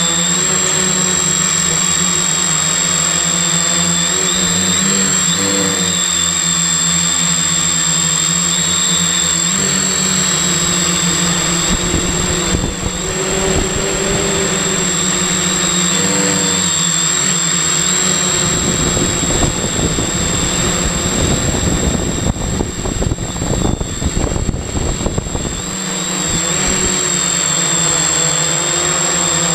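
Multirotor drone's electric motors and propellers whirring in flight, heard from the camera on board, their pitch drifting up and down as the throttle changes, over a steady high whine. Through the middle stretch the low end turns rough and uneven.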